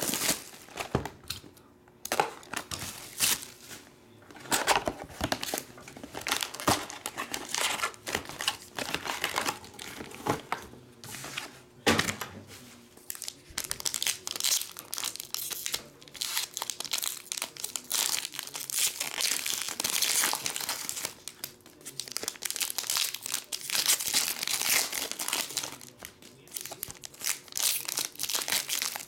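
Cellophane shrink wrap being peeled off a trading card box, then Upper Deck SP Authentic hockey card foil packs being torn open and pulled apart by hand, with irregular bursts of crinkling and tearing.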